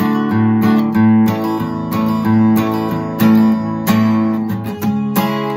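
Acoustic guitar strummed, chords ringing in a steady rhythm.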